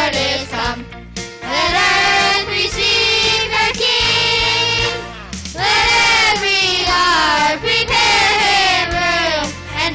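A group of children singing together into microphones over instrumental accompaniment, pausing briefly about halfway before the next line.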